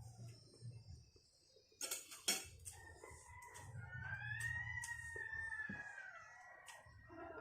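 A rooster crowing once, a long drawn-out call starting about three seconds in and falling away near the end, preceded about two seconds in by a couple of sharp knocks.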